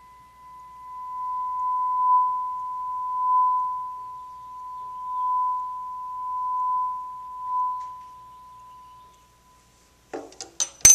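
A 1,000 Hz tuning fork ringing a steady pure tone over a resonance tube closed at the bottom by water. The tone swells louder and falls back about five times as the tube length changes, the louder moments being resonances where a standing wave forms in the tube. It fades out near the end, followed by a few sharp knocks.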